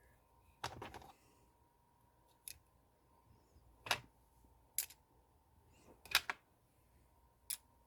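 Plastic LEGO minifigure parts clicking as they are handled: a handful of separate sharp clicks a second or so apart.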